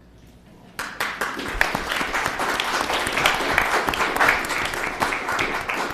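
A small audience applauding, starting suddenly about a second in and carrying on steadily.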